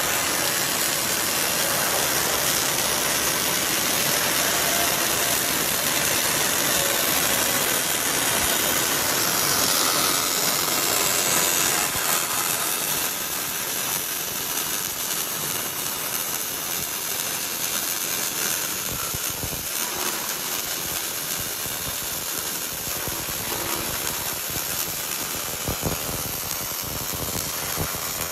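The welding arc of a PM400F welding machine burning along a metal seam, giving a steady hiss. It turns a little quieter about twelve seconds in.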